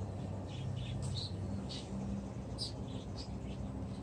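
Short high-pitched chirps, about one every half second to second, over a low steady hum.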